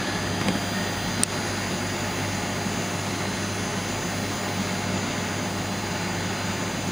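Laser marking machine running while it marks denim: a steady fan-like roar with a low hum and thin high whines. A sharp click comes about a second in.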